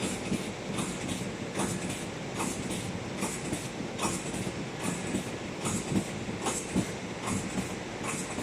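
Chicken nugget and onion ring forming machine running: a steady mechanical clatter with a sharp, hissing clack repeating evenly, about five strokes every four seconds, as the former cycles.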